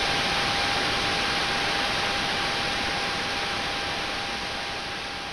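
Steady hiss of broadcast static with a faint steady tone running under it, slowly fading out over the second half.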